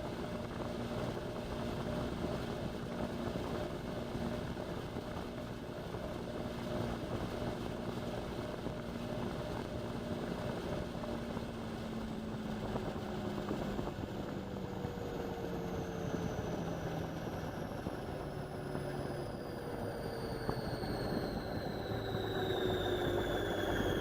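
Indesit washing machine's drum and motor spinning, with a steady hum and rushing sound; about halfway through, the motor whine and the hum start falling slowly in pitch as the spin slows down.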